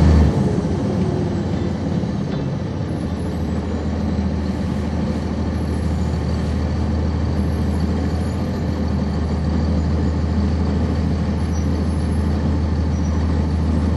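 A 1999 NovaBus RTS transit bus's Cummins ISC diesel engine idling steadily, heard from on board. Just after the start the louder engine note cuts off and the bus settles into a steady low hum.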